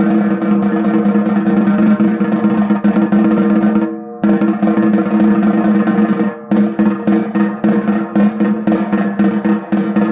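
Snare drum roll played with drumsticks, a pressed buzz roll, with the drum ringing steadily under it. It breaks off briefly about four seconds in, and after another short gap a little past six seconds the strokes come through more separately.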